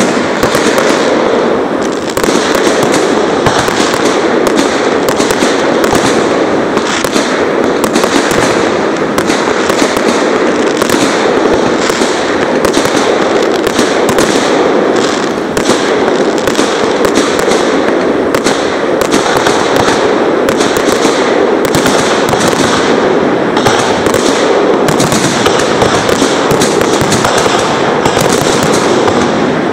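Dense fireworks barrage: a continuous stream of overlapping bangs and crackling, loud and unbroken.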